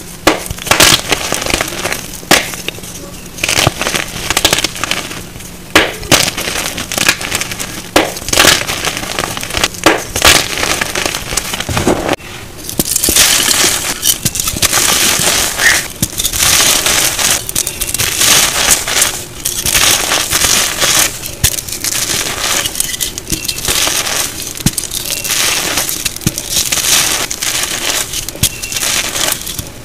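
Hands squeezing and crushing crumbly reformed gym chalk mixed with glitter: a run of separate sharp crunches and crackles, then from about twelve seconds in a denser, hissier crumbling in repeated squeezes.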